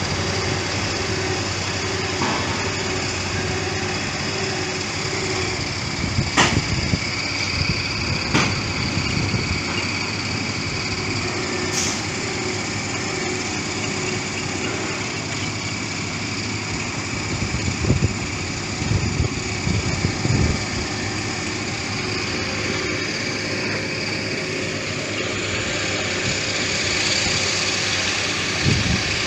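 Engines of heavy road-construction machinery running steadily, with a few sharp clicks and a cluster of knocks partway through.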